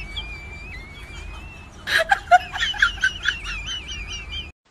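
High-pitched animal chirps and squeaks, a few a second, over a steady warbling whistle-like tone, with a louder short call about two seconds in. The sound cuts off suddenly just before the end.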